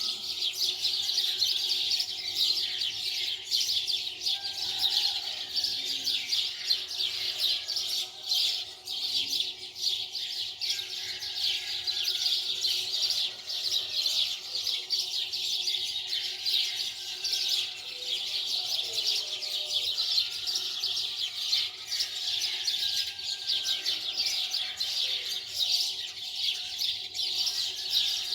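Many small birds chirping and twittering continuously in a dense, overlapping chorus of short high chirps.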